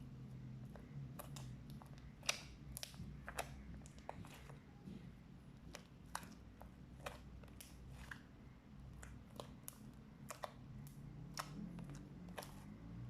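Fluffy slime being squished and stretched by hand, giving off irregular small pops and clicks as air pockets burst, a few a second. There is a faint low hum underneath.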